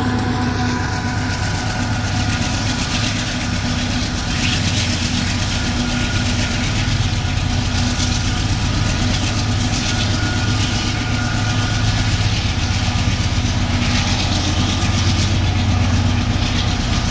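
Union Pacific GE AC4400CW diesel-electric locomotives running steadily, their low engine hum over the continuous noise of train wheels on the rails.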